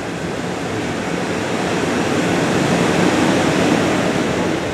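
Ocean surf breaking and washing up the beach, a rushing sound that swells to its loudest about three seconds in and then eases.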